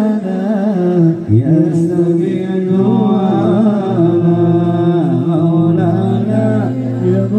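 Sholawat, Islamic devotional chanting, sung in long held phrases and played loud through a large hired sound system.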